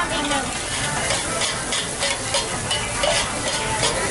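Fried rice sizzling on a large flat metal pan while two metal spatulas stir it, scraping and clanking against the pan in repeated strokes.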